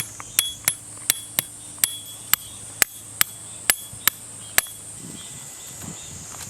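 A hammer striking tent pegs into the ground, about a dozen sharp metallic knocks at two to three a second that stop about five seconds in. A steady high insect buzz runs underneath.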